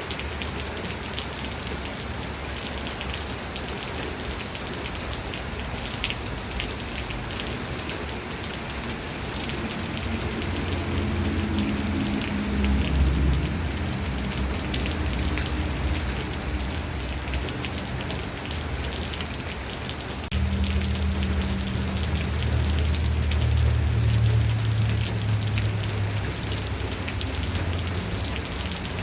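Steady rain falling on a surface, with individual drops ticking through it. A low rumble swells up about a third of the way in, and again, starting suddenly, about two-thirds of the way in.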